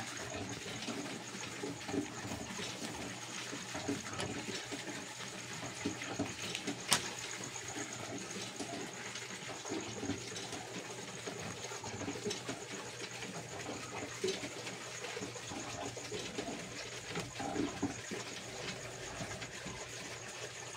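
Plastic drinking straws rustling and clicking lightly as they are bent, bundled and tied, with one sharp click about seven seconds in. Underneath is a faint steady background with a thin high whine.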